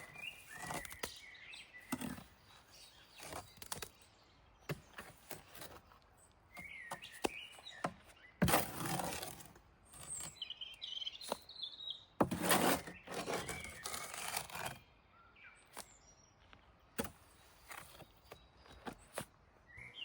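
Small birds chirping now and then over scattered knocks, with two longer stretches of noise about eight and twelve seconds in.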